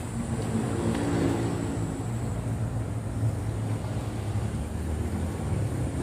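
A motor engine running steadily with a low hum, growing a little louder about a second in.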